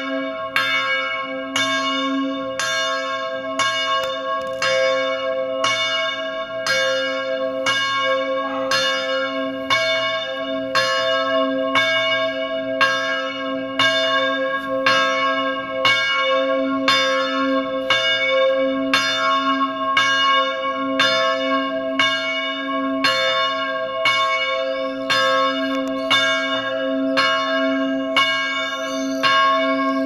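A church bell in a stone bell tower ringing loud and close, struck in a steady rhythm about once a second, each stroke ringing on into the next.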